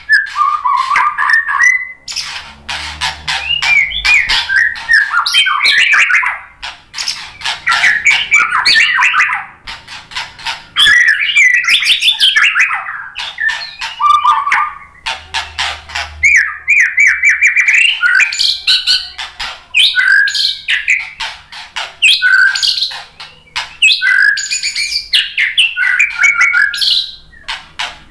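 Male white-rumped shama singing loudly in a long, varied run of phrases: clear whistled notes mixed with rapid harsh clicking and chattering, broken by a few brief pauses.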